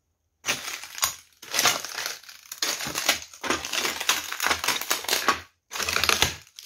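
Crunching and scraping noise, in four stretches separated by short gaps.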